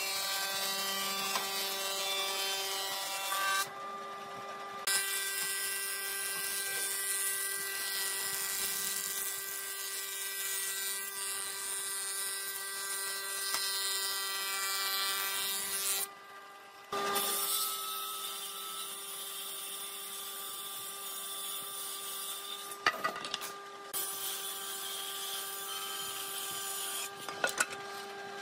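Hitachi combination woodworking machine running with a steady high hum as a board feeds through its planer, the cutterhead shaving the wood. The sound breaks off briefly three times, and a few sharp knocks come near the end.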